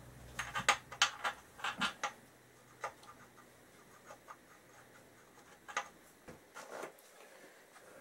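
Irregular metallic clicks and light knocks of hand tools and bolts being worked at a motorcycle's rear shock linkage. A quick run of clicks comes in the first two seconds, then a few scattered taps.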